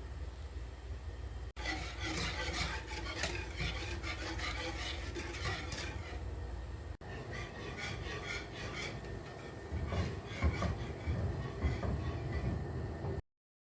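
Kitchen utensil clinking and scraping against dishware in quick, irregular strokes over a steady low hum, with a few duller knocks in the later part; the sound breaks off twice briefly and cuts off suddenly near the end.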